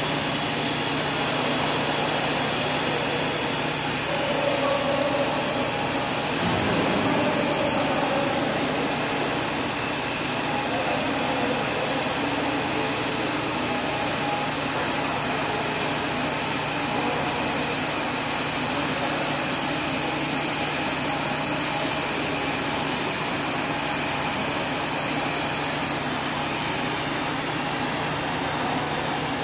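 Steady mechanical drone and hiss with a constant low hum while a TIG arc burns on a 316 stainless steel pipe weld. It is unbroken and even throughout.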